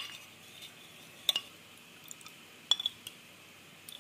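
Metal spoon stirring a cornflour-and-water slurry in a ceramic bowl, clinking sharply against the bowl a handful of times, with a quick run of three clinks about three quarters of the way through.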